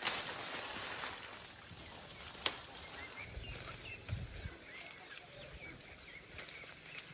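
Quiet outdoor rural background: faint bird chirps over a steady high-pitched hum, with two sharp clicks, one right at the start and one about two and a half seconds in, and a brief low rumble around the middle.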